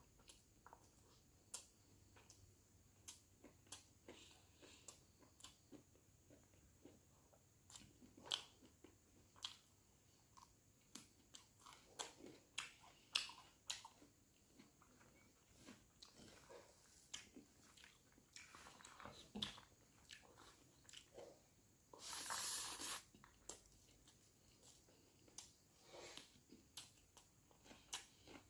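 Faint, close chewing and mouth smacks of a man eating rice and broiler chicken liver by hand, with many small sharp clicks. One louder rushing noise, about a second long, comes roughly three quarters of the way through.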